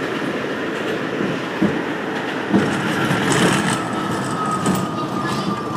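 R62A subway car running along elevated track, heard from inside the car: a steady rumble of wheels on rail with a couple of sharp clacks from rail joints. About halfway through, a thin high whine comes in and slowly drops a little in pitch.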